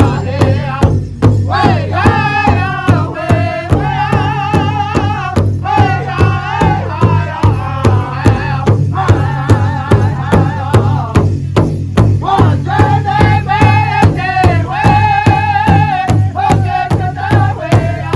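Pow wow drum group performing: several singers' high, wavering voices over a large shared drum struck in a steady, even beat.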